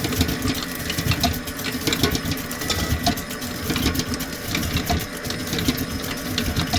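Electric stand mixer running steadily, its beater working a creamed butter-and-sugar batter as eggs are added, with a steady motor whine and fast light clattering.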